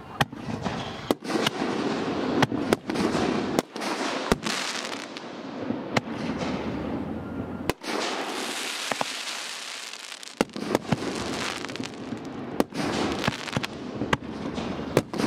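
A set of firework cans firing: a string of sharp bangs from shells launching and bursting, every half second to a second, over dense crackling. The bangs thin out briefly about eight seconds in, then pick up again.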